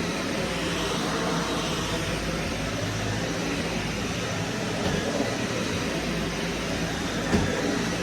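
Vacuum cleaner running with a steady whir, its pitch shifting slightly as it is worked over the floor. A brief knock sounds near the end.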